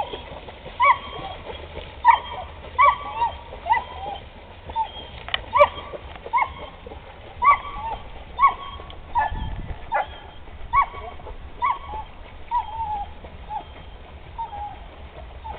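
A dog yelping and whining in short, high calls, roughly one a second, some rising and falling in pitch.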